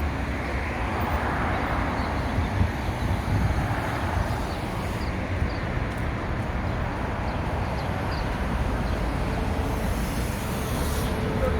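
Steady road and traffic noise of a car driving along a city street, with a constant low rumble.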